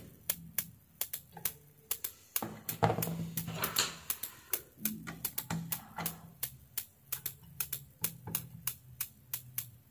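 Faulty S-500-12 500 W switch-mode power supply ticking a few times a second, with an on-and-off hum. These are the tick and hum symptoms of its unregulated, fluctuating output, which was traced to damaged driver transistors for the isolating pulse transformer.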